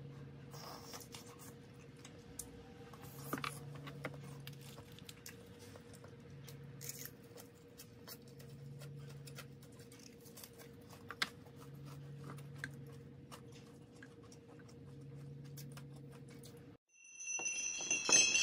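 Faint eating sounds: scattered light clicks and taps of a spoon and chopsticks against a clay pot, and chewing, over a steady low hum. Near the end this cuts off, and bright ringing tones come in as music begins.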